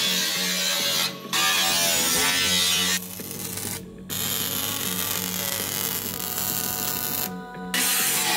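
Angle grinder cutting and grinding steel, a steady high hiss with a motor whine, in short clips that drop out briefly three times, over background music.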